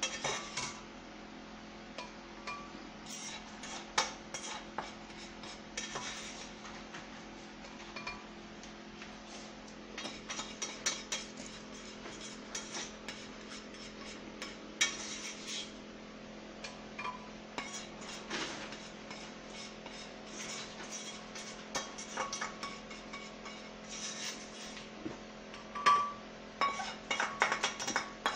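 A spoon scraping and tapping against a frying pan, emptying powdered milk into a blender jug. It comes in irregular bursts of scrapes and knocks, with a sharper clink about 26 seconds in, over a steady low hum.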